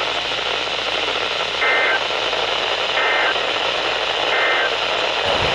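Three short bursts of EAS SAME digital data tones, about a second and a half apart: the end-of-message code that closes a severe thunderstorm watch alert. They sound over a steady static hiss.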